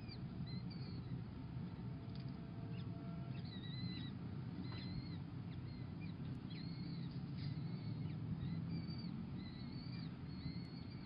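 Peregrine falcon chicks begging for food: thin, high-pitched calls in many short repeated notes, heard while being fed. A steady low hum lies underneath.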